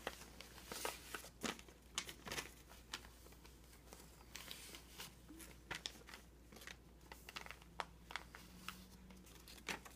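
Sheets of paper rustling and crinkling in faint, irregular crackles as a crawling baby presses his hands on them and grabs them.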